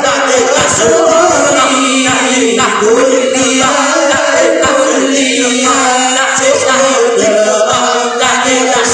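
Congregation singing an Islamic devotional chant together, many voices holding long, slowly gliding notes.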